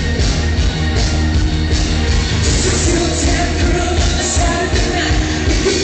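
Loud music from a DJ set, with a heavy bass and a steady beat.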